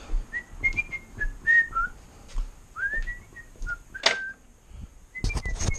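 A person whistling a tune in short notes, some sliding up or down, with a sharp click about four seconds in and a few more clicks near the end.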